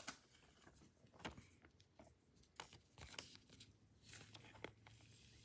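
Near silence with faint, scattered clicks and rustles of glossy trading cards being handled and flicked through one after another.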